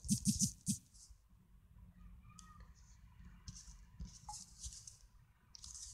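Scattered faint taps and short clicks of fingers typing on a tablet's touchscreen keyboard.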